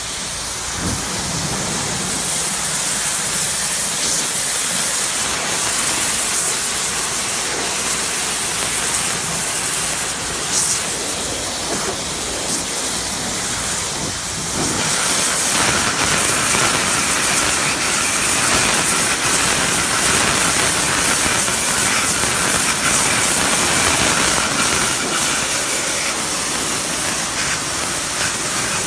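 Pressure washer spray hissing steadily against a painted fence and the ground beneath it. It gets a little louder and brighter about halfway through.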